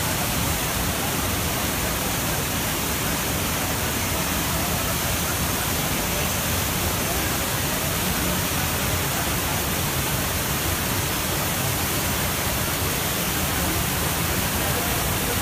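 Trevi Fountain's water cascading over its travertine rocks into the basin: a steady, unbroken rush of splashing water.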